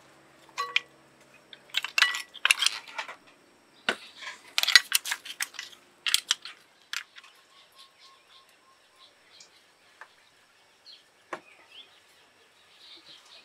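Cooked clam shells clinking against one another and against ceramic bowls as they are moved by hand, in quick clusters of clicks through the first seven seconds, then only a few scattered taps.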